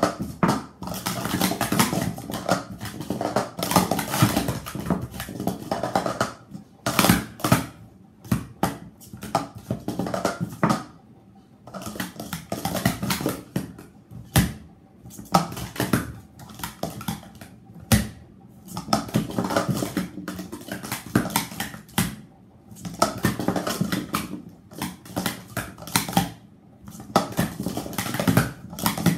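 Speed Stacks plastic sport-stacking cups being stacked up and down fast on a stacking mat: rapid runs of light plastic clattering and tapping, broken by short pauses every few seconds.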